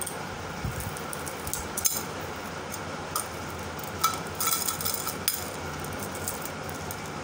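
Thin gold-plated metal chains clinking and jangling as they are handled and laid down, with a few light clicks about two seconds in and a busier cluster around four to five seconds in.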